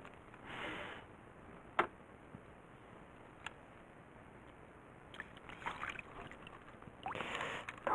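Water sloshing and splashing in short bursts as a landing net holding a small bass is worked through the water beside a boat, with a sharp click about two seconds in and a fainter one a little later.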